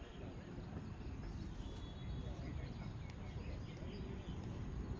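Outdoor ambience dominated by a steady low rumble like wind on the microphone, with faint short high chirps or distant calls scattered through it.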